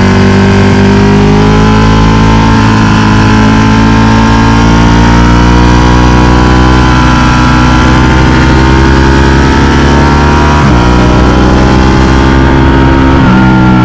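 Ducati Panigale 1299S's Superquadro V-twin heard from on board, pulling up through the revs in second gear. The pitch drops sharply at the shift to third about eleven seconds in, then drops again near the end.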